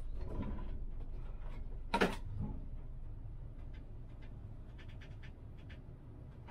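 Tram's low, steady rumble, slowly fading, with one sharp clunk about two seconds in and a few faint clicks near the end.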